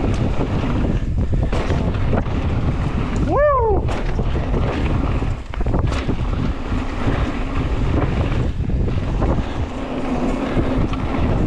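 Wind rushing over the camera microphone of a mountain bike ride at speed, with a few knocks from the bike on the trail. About three and a half seconds in, a short high sound rises and falls in pitch.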